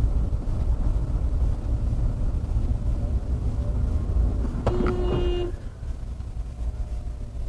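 Steady low road and engine rumble of a moving car, as heard from inside it, with a single short car horn blast a little under five seconds in.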